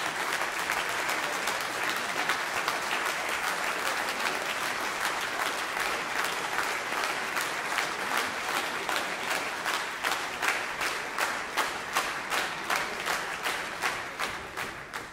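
Concert audience applauding. About halfway through, the applause settles into rhythmic clapping in unison, about three claps a second, which fades out at the very end.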